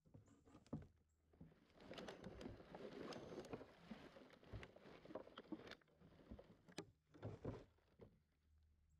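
Kayak paddle strokes splashing in the water, with scattered drips and sharp clicks; a longer run of splashing in the middle, then a few more strokes near the end.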